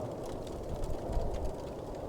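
Wood fire crackling with small sparse pops over a steady low rumble, the rumble swelling briefly about a second in.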